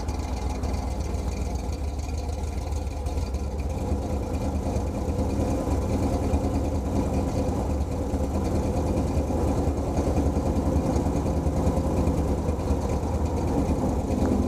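A 1979 Ford Bronco's V8 engine running steadily as the truck rolls in on gravel and comes to a stop, then idling.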